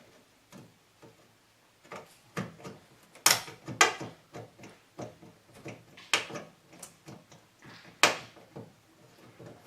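Irregular knocks, clicks and clunks of hand work freeing a window air conditioner unit from its window frame. The loudest knocks come about three, four, six and eight seconds in.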